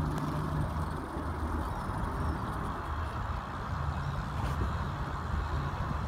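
An engine running steadily at a low pitch, with a steady rushing noise over it.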